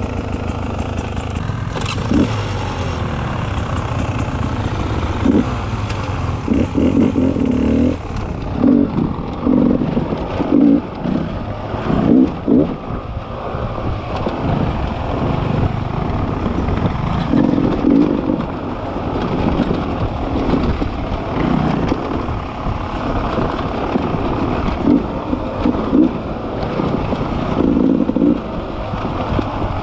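Beta 300 RR single-cylinder two-stroke dirt bike engine running under a rider, the throttle opened and closed again and again in short surges every second or so.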